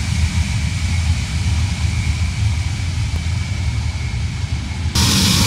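Ilyushin Il-76 transport's four jet engines running as it taxis: a steady low rumble with a thin whine. About 5 s in, the sound turns brighter and hissier as the engines are heard close up.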